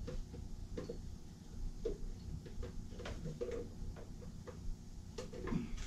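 Irregular light clicks and taps of bolts and metal parts being handled while a car's front bumper is fastened at its side.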